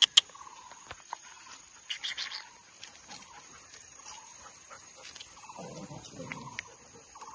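Brief dog vocalisations: a short high-pitched one about two seconds in and a lower, longer one around six seconds. They sit over a steady high insect drone, with a sharp click just after the start.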